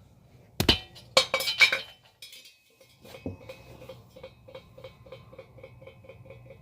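Hand tools knocking against the car's metal exhaust hardware: several sharp metallic clinks, then a steady run of even clicks, about four a second, from a ratchet wrench working a bolt.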